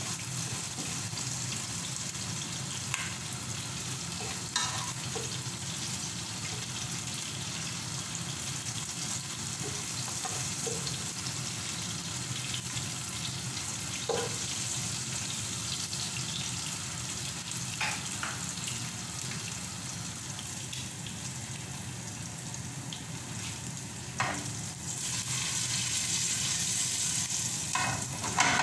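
Onions and whole spices sizzling steadily in hot oil in a pot, with a wooden spatula stirring, scooping and now and then knocking against the pot. The sizzle grows louder over the last few seconds.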